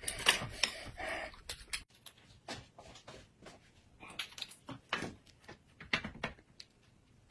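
Close-miked eating sounds: chewing and lip smacking, then, after about two seconds, quieter scattered short clicks and taps.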